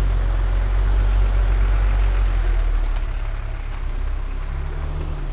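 Heavy truck's diesel engine running at low revs, a steady low drone that eases slightly about three seconds in.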